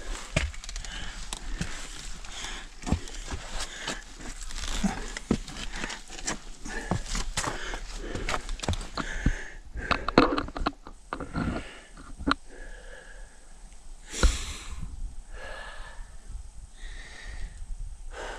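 A hiker breathing hard while scrambling up steep rock, with frequent scuffs, knocks and clicks from boots, hands and the handheld camera against the rock.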